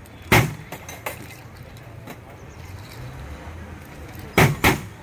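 Kulukki sarbath shaker, a glass capped with a cup, being tossed and caught: sharp clacks and clatters of the drink inside. There is one strong clatter about a third of a second in, a lighter one at about a second, and two in quick succession near the end.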